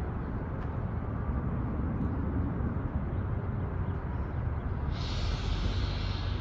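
Steady low rumble of a distant diesel locomotive, mixed with wind on the microphone. About five seconds in, a steady hiss joins.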